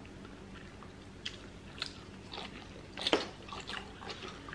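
Close-miked eating sounds: biting and chewing, a series of short sharp wet clicks and smacks, the loudest about three seconds in.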